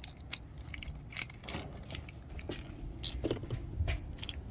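Plastic meat injector being handled: a scattering of light clicks and scrapes as its needle is put back inside the barrel and the barrel is twisted closed.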